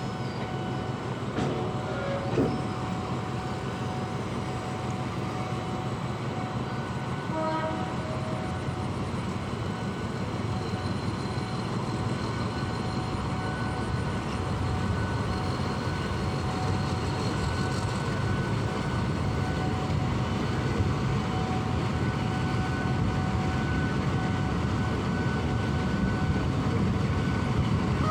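Train running through a station, a steady rumble that grows slowly louder, with a couple of brief tones about seven and a half seconds in.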